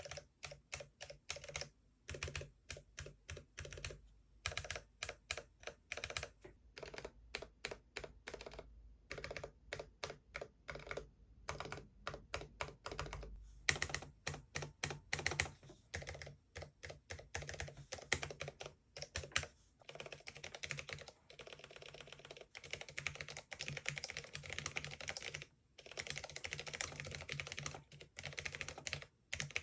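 Typing on a Cherry MX 10.0 LP low-profile mechanical keyboard with Cherry MX Low Profile Red linear switches and ABS keycaps: a run of clicky keystrokes, spaced and uneven at first, turning into faster, denser typing about two-thirds of the way in.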